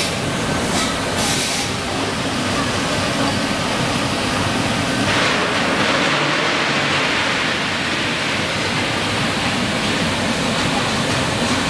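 Plastic film printing machine running in a workshop: a steady, loud mechanical noise, with a few short high hisses about a second in.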